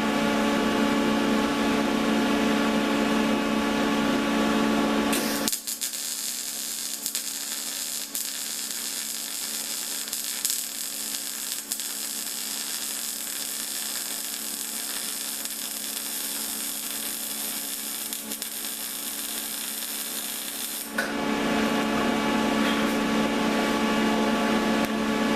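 A steady electrical hum, then, about five seconds in, a welding arc crackles and hisses for about fifteen seconds before stopping and leaving the hum again.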